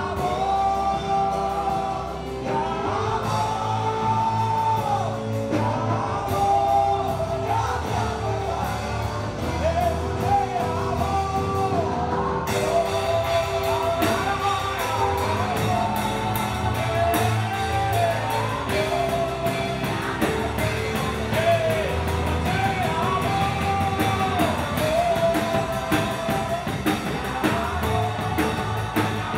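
Live Christian worship song: singing with held notes over a band with bass and sustained keyboard-like chords. A full drum kit with cymbals comes in about twelve seconds in and plays on under the singing.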